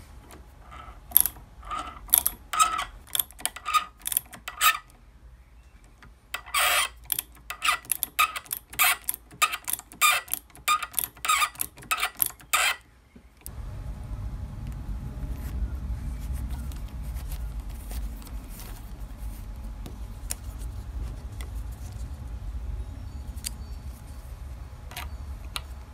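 Ratcheting T-handle tap wrench clicking in quick runs as a tap is worked by hand into a hole in a steel part. About halfway through it gives way to a steady low hum with only occasional light clicks.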